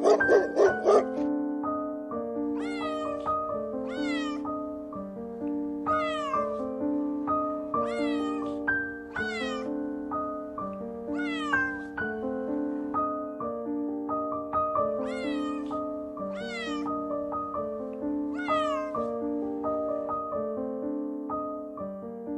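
A cat meowing again and again, about a dozen short calls that fall in pitch, over a background of piano music.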